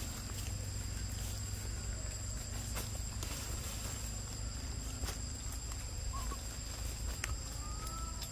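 Forest ambience: a steady high insect drone over a low rumble, with scattered light clicks and rustles in dry leaf litter. Two short high calls, one about six seconds in and a rising one near the end.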